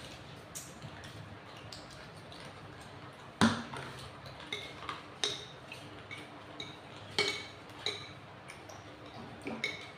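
Spoons and cutlery clinking and tapping against soup bowls during a meal: scattered short clinks, with one sharper knock about three and a half seconds in.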